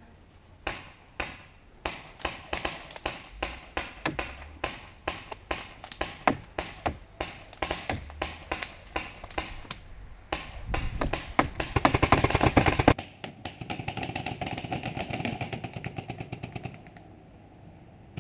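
Paintball markers firing: single shots at about two a second, then a fast rapid-fire burst about ten seconds in, the loudest part, followed by quieter rapid fire that stops about a second before the end.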